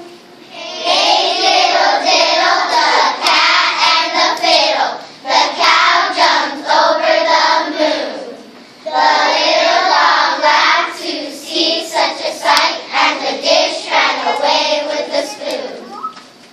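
A children's chorus singing together in phrases, with a short break about eight seconds in before the singing resumes.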